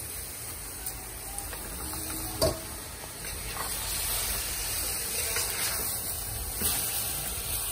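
Washed rice sizzling in hot oil in a metal pot with bhagi and vegetables, the hiss getting louder from about halfway through as a spoon stirs it. One sharp knock a little before halfway.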